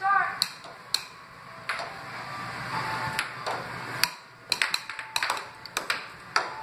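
Air hockey puck and mallets clacking as the puck is struck and hits the table's rails: a string of sharp knocks that comes thickest in the last couple of seconds.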